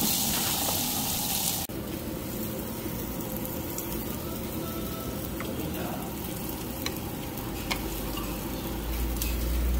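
Beef sizzling on a hot cast-iron grill pan. The sizzle is loud for the first second and a half, then cuts off suddenly to a quieter steady sizzle with a few light clicks.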